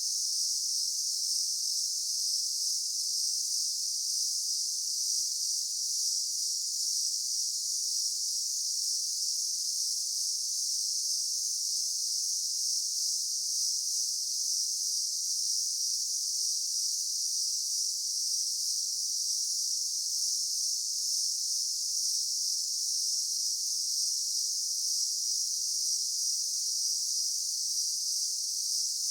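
Daytime insect chorus: many insects together making a steady, high-pitched buzzing hiss, with no breaks or changes.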